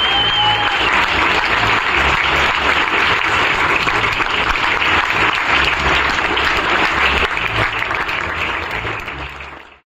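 Audience applauding, with a high steady whistle through the first second; the applause fades out near the end.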